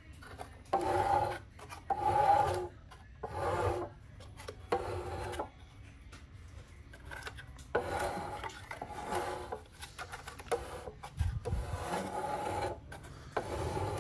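Kärcher HD 585 pressure washer's electric motor and pump being turned over by hand at the cooling fan, giving a rasping scrape with each turn, in repeated strokes with short pauses between them.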